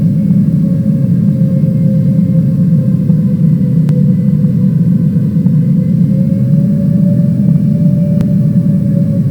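Airliner cabin noise: a steady, loud low drone from the engines and airflow, with a faint tone that drifts slowly in pitch. Two short clicks, about four seconds in and near the end.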